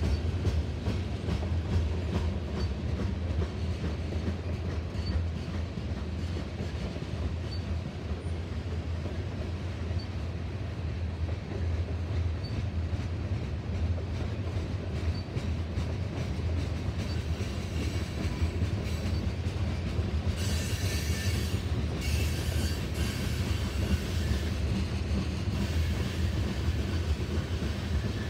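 Long freight train of tank cars rolling slowly past upgrade, steel wheels clicking over the rail joints over a steady low rumble. About two-thirds of the way through, wheel flanges squeal high-pitched on the curve for a few seconds.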